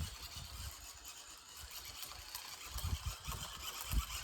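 Small toy RC car driving at a distance: a faint mechanical running and rattling, with irregular low thumps, the loudest near the end.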